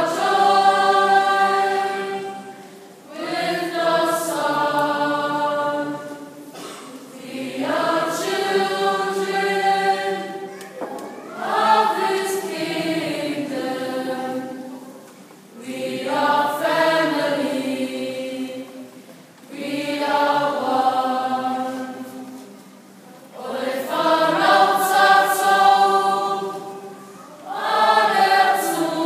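Mixed choir of young men and women singing in harmony, in long held phrases of about three to four seconds that swell and fade, with short breaks between them.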